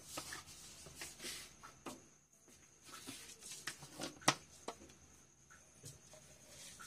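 Mustard seeds beginning to crackle and pop in hot oil as they are tempered, with scattered sharp pops over a faint sizzle. The loudest pop comes a little past four seconds in.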